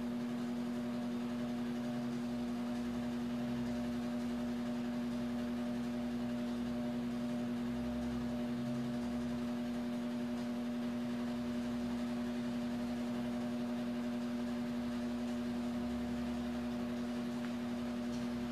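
Steady, unchanging hum with a faint hiss underneath: small-room tone with no speech.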